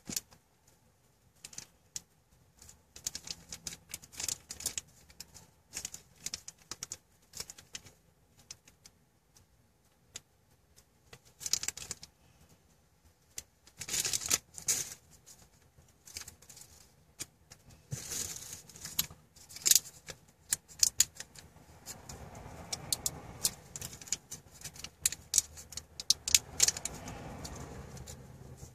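Irregular small clicks, taps and rattles of a plastic car charger and its micro USB cable being handled, with a few short rustling bursts.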